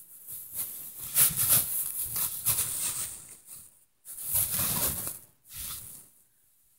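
Rustling of the duvet and handling noise from the phone close to the microphone, in three bouts: a long one of almost four seconds, a shorter one, then a brief one.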